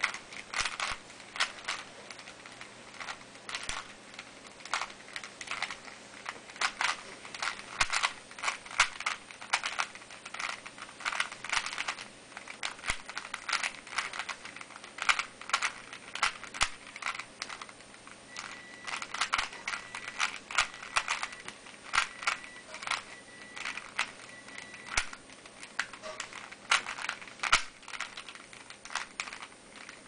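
Type A II 3x3 speedcube being turned one-handed, its plastic layers clicking in quick irregular runs with short pauses between.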